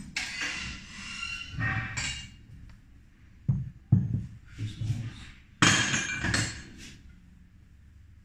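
Tools and parts being handled and set down on a workbench while it is cleared: irregular rustling and scraping, with two sharp thuds close together about three and a half seconds in.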